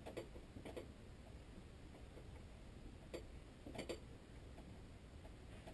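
Faint footsteps shuffling on the floor: a handful of soft, irregular taps, with a quick pair near the end.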